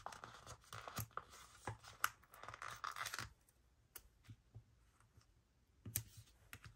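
Sticker being peeled off a glossy sticker sheet: faint crackly rustling with small ticks, then quieter, and a click near the end as it is pressed onto the paper page.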